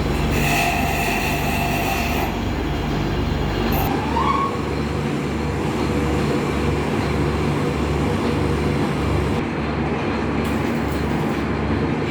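Metal lathe running, a steady mechanical rumble with a regular low throb that shifts about four seconds in.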